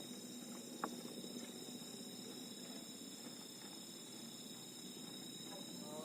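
Night insects calling in chorus: a steady, high-pitched drone held on several tones. A single sharp click comes about a second in.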